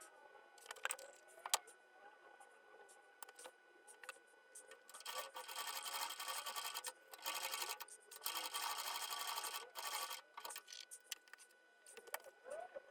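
Sewing machine stitching Velcro onto a hockey glove, running in three bursts through the middle with short stops between them. Scattered clicks and handling sounds come before and after.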